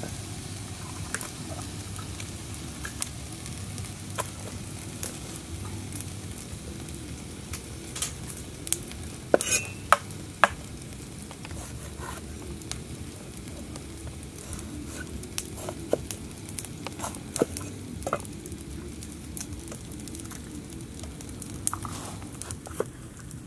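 A cleaver cutting bell peppers on a wooden chopping block: scattered crisp cuts and knife taps on the wood, with a cluster of sharper knocks about halfway through, over a steady low background hiss.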